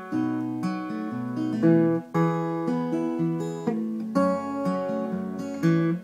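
Cutaway acoustic guitar strummed in chords, with no voice, and a brief drop in the strumming about two seconds in.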